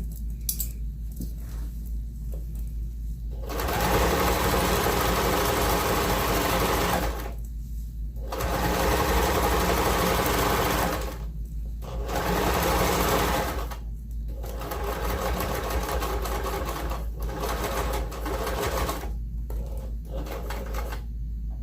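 Electric sewing machine stitching a fabric hem in four short runs, stopping and starting between them.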